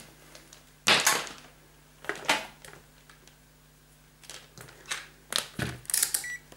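Knocks and clicks of a handheld digital multimeter and its test leads being fetched, set down and handled, with its rotary dial being turned. Near the end the meter gives two short high beeps.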